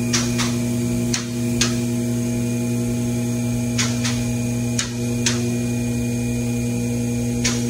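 Electric motor of a four-post car lift's hydraulic pump running with a steady, fixed-pitch hum, plus sharp metallic clicks every second or so, typical of the lift's safety latches catching as it raises the car.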